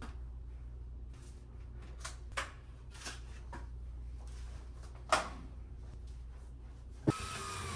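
Framed pictures and small decor pieces being handled and set against the wall: scattered light taps, knocks and rustles, the loudest knock about five seconds in and a sharp tap about seven seconds in, over a steady low hum.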